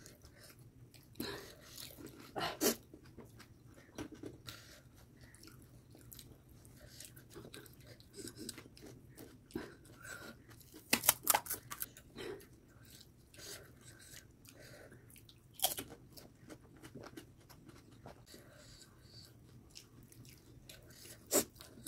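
Mouth-close eating of pani puri: crisp hollow puris cracked open and bitten, crunching and chewing, with sharp crunches at irregular moments, the loudest cluster about eleven seconds in.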